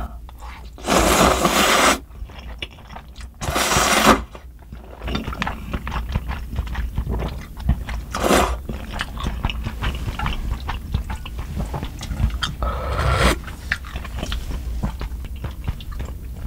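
Close-miked eating of soupy spicy instant noodles: two loud slurps of noodles, about a second in and again near four seconds, then steady wet chewing with small clicks, broken by short sips of broth from the bowl.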